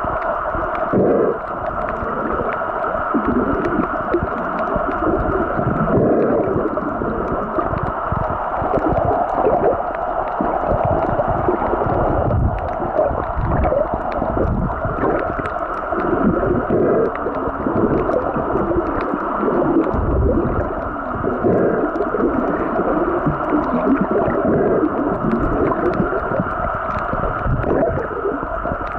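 Water heard underwater through a waterproof compact camera's built-in microphone: a continuous muffled rushing and gurgling that swells unevenly, with faint scattered ticks throughout.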